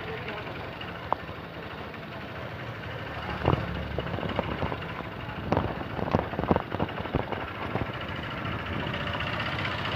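Engine of a moving vehicle running steadily, with a run of sharp knocks and clatters from about three and a half to seven and a half seconds in.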